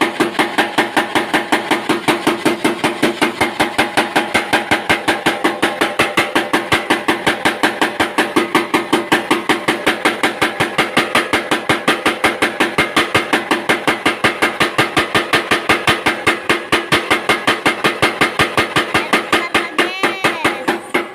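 Blacksmith's mechanical power hammer running, its ram striking in a fast, even rhythm of about five blows a second with a metallic ring, then stopping abruptly near the end.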